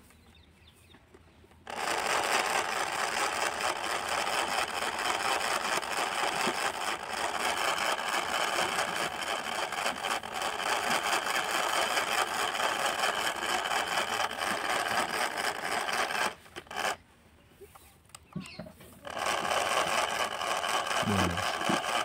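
Small toy DC motor whirring steadily while its wires are held against a battery. It starts a second and a half in, cuts out around 16 seconds, and starts again about three seconds later as the wires are touched back on.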